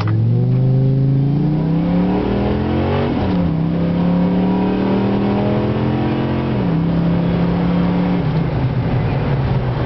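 Dodge Ram SRT-10's 8.3-litre V10 heard from inside the cab under hard acceleration: the engine note climbs, drops at a gear change about three seconds in, climbs again, and drops at another shift about six and a half seconds in, falling once more about eight seconds in.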